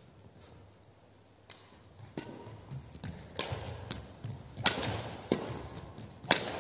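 Badminton rackets hitting a shuttlecock in a fast rally: several sharp hits roughly a second apart, the loudest two near the end, each echoing briefly in a large hall.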